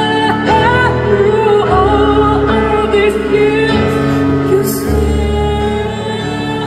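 A woman singing a slow rock ballad live, with piano-led band accompaniment holding long, changing chords underneath, heard through an arena's sound system.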